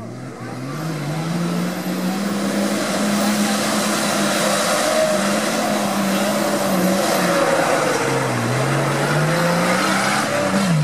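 Nissan Patrol GR's engine revving hard under load as the off-roader climbs through deep mud. The revs rise in the first two seconds, hold high, drop about eight seconds in and climb again near the end.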